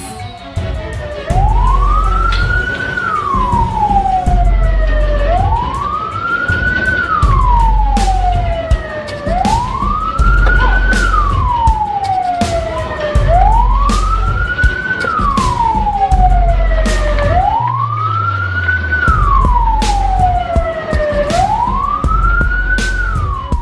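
Siren wailing, rising quickly and falling slowly once every four seconds, over a pulsing deep bass beat with sharp ticks.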